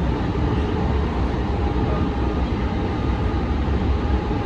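Siemens light-rail trolley running along the track, heard from inside the driver's cab: a steady low rumble of wheels on rail with a faint steady hum above it.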